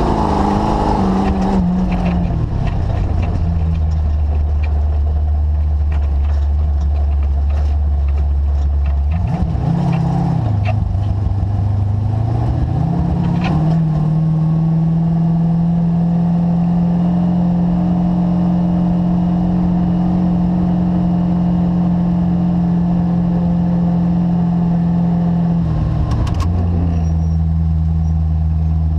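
DirtKinetics Explorer's engine running through a cruising lap. Its note eases off about a third of the way in, climbs back up and holds steady at a higher pitch, then drops lower near the end. Scattered knocks and rattles sound over it.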